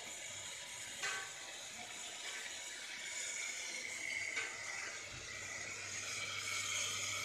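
Milk boiling in open steam-jacketed mawa kettles: a steady hiss of steam and bubbling, with a couple of brief knocks. A low steady hum joins about five seconds in.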